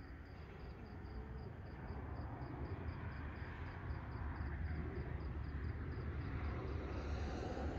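Cricket chirping steadily at night, a thin high chirp repeated evenly about four to five times a second, over a low steady rumble.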